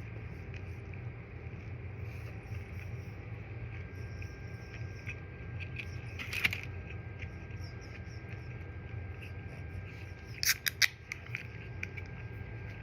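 Close-up eating sounds: small wet mouth clicks while chewing, with a brief burst of louder sharp clicks about ten seconds in, over a low steady hum.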